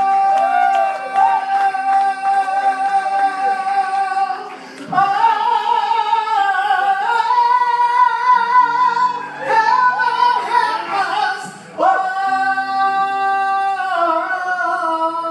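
Live band music with a singer holding long high notes, several seconds each, with short breaks between them about a third and three quarters of the way through.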